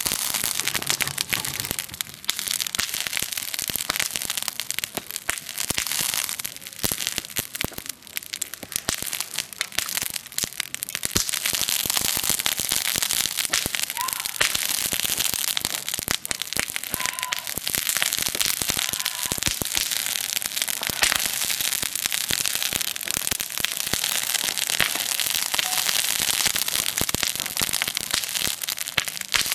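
Wood campfire crackling and popping: a dense, irregular run of sharp snaps over a steady hiss.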